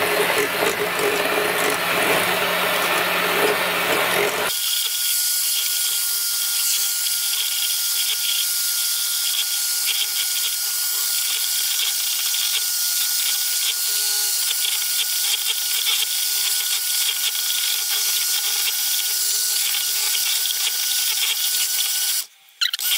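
Bosch electric hand mixer running steadily with a constant whine, its beaters whipping egg whites and sugar to peaks in a metal saucepan over a water bath. A little over four seconds in, the deeper part of the sound drops away, and the sound briefly breaks off near the end.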